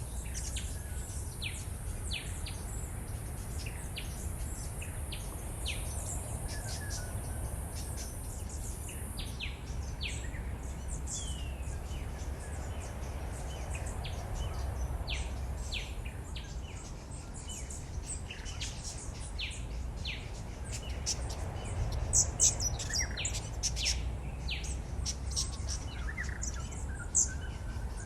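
A chorus of many birds chirping and calling in bushland: short, high calls, busier and louder in the second half, over a steady low rumble.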